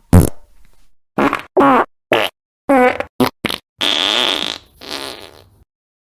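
A rapid string of fart sound effects, about nine separate blasts spliced together with dead silence between them. Some are short pops; others are longer, buzzy farts whose pitch wobbles, the longest near the end.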